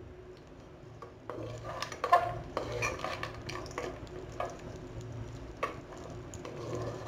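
Slotted wooden spatula stirring and scraping almonds and pistachios around a nonstick pot in a little hot ghee, with light sizzling as the nuts roast. The irregular scrapes and clicks start about a second in.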